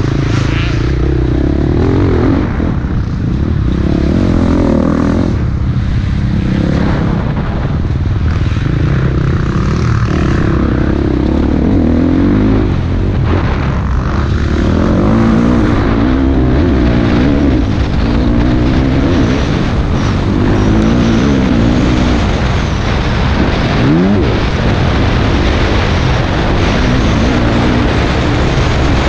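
Dirt bike engine heard from a camera on the bike, revving up and down again and again as the throttle is worked through the trail's turns.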